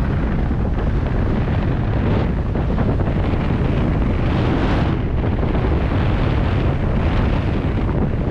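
Wind buffeting the microphone during a ski descent, a dense steady rumble. Over it the hiss of skis on snow swells about every two to three seconds as the turns go by.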